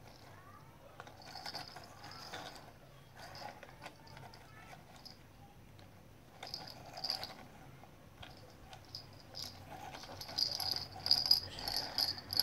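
Plastic clicking and rattling from a plastic duck toy on wheels as it is handled and turned. It comes in short spells and grows louder and busier near the end.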